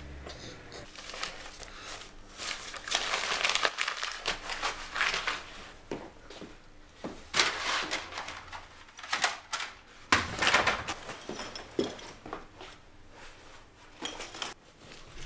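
Paper rustling and crinkling in irregular bursts as sheets and crumpled packing paper are handled over a cardboard box, with a duller, heavier burst about ten seconds in.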